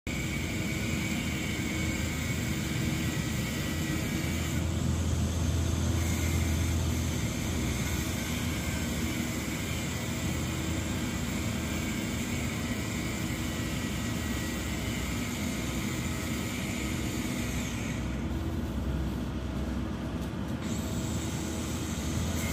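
Steady engine-like rumble with a constant low hum from machinery running on a construction site; the hum swells for a couple of seconds about five seconds in.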